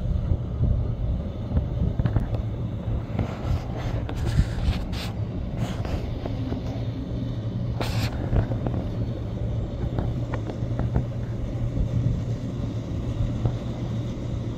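Quad outboard motors on a center-console boat running steadily at cruising speed as it passes, a continuous low drone, with a few brief hisses about four to five seconds in and again at eight seconds.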